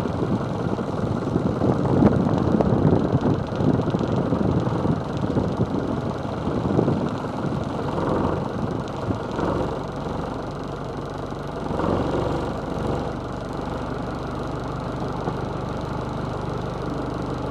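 Camper van driving slowly, heard from a roof-mounted camera: an uneven rumble of wind and road noise in the first half, settling about halfway into a steady low engine hum.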